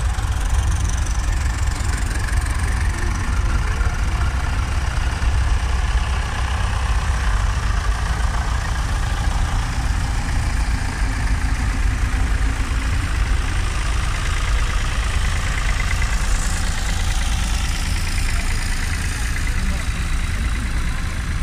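Several vintage tractor engines running at low revs as the tractors pull slowly past one after another, with a crowd chattering.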